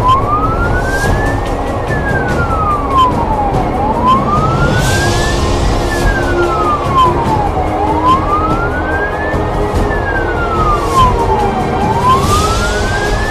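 Fire engine's wail siren rising and falling slowly, about four seconds per cycle, heard from inside the cab over the truck's engine and road noise at highway speed, with a faint regular ticking.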